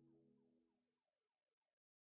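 The last of soft ambient background music fading away, cutting to silence near the end.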